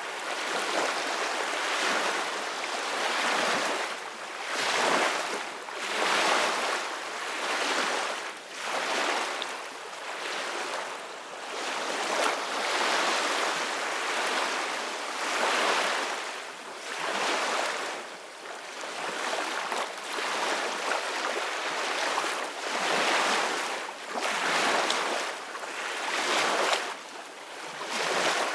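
Ocean waves breaking and washing in as a steady rushing surf, swelling and easing every couple of seconds.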